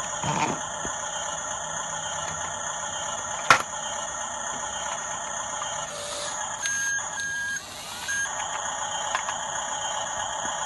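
RC bulldozer's electric drive motors and gearboxes whining steadily, with one sharp click about three and a half seconds in and a brief change in the whine for about two seconds near the middle.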